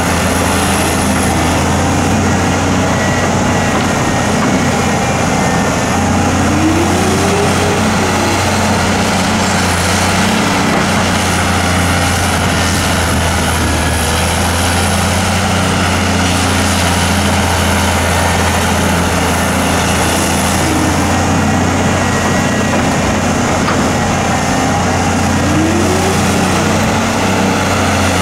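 Diesel engine of a Hyundai Robex 290LC-3 crawler excavator running steadily while it digs and loads soil, its note rising and falling a few times as the machine works.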